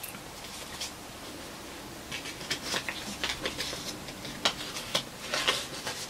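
Handling noise of a sock-in-progress and its yarn being tucked away: short, irregular rustles and light clicks, starting about two seconds in.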